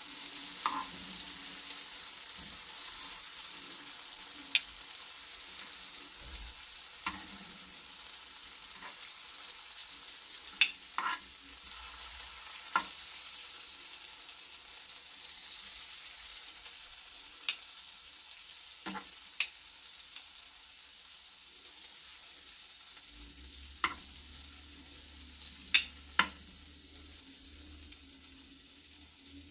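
Shrimp sizzling in oil in a frying pan, a steady hiss, with about ten sharp clicks of the tongs against the pan and plate as the shrimp are turned and lifted out.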